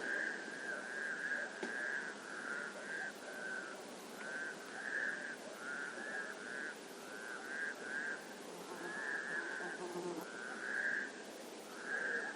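Frog calling over and over: short pulsed, buzzy calls at one pitch, about one and a half a second, with a few brief gaps. Behind them is a steady outdoor hiss.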